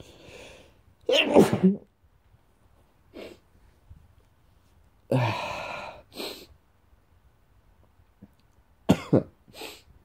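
A man's allergic sneezing fit: three loud sneezes about four seconds apart, each followed by a short sniff.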